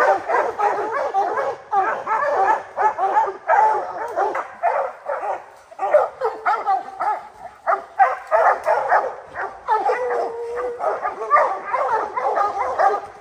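Several hounds barking together without a break, short overlapping barks and bawls: hounds barking treed, the sign that they have a black bear up a tree.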